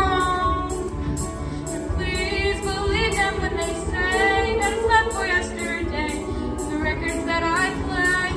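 Music: a school choir singing over a recorded backing track, with a steady beat of hi-hat ticks and bass underneath.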